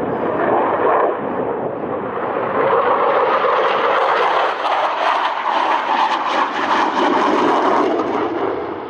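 Loud, continuous rushing jet noise of a JAS-39C Gripen fighter's single Volvo RM12 turbofan during a display pass, turning brighter about three seconds in and duller again near the end.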